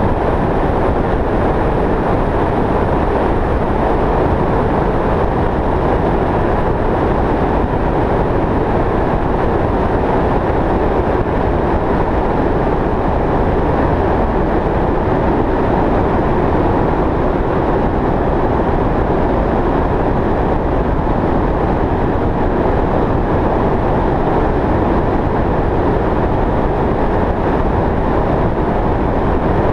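Steady road noise of a vehicle driving at highway speed: an even rumble of tyres on asphalt and wind, unbroken throughout.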